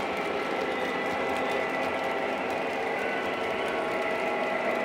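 Lionel O-gauge model trains running on the layout: a steady mechanical whir and rattle of electric motors, gears and wheels on three-rail track, with a thin high whine held throughout.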